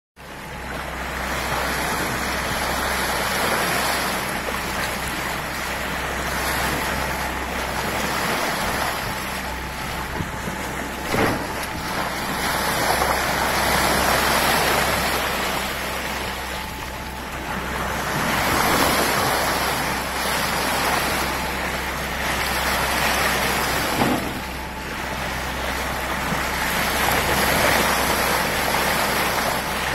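Water rushing and splashing along a moving boat's hull and bow, swelling and easing every few seconds, with wind buffeting the microphone and a steady low hum underneath. Two brief sharp knocks come through, one near the middle and one later.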